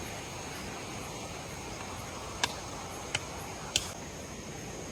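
Steady outdoor background hiss with a thin, high, unbroken insect drone, and three short sharp clicks a little over halfway through.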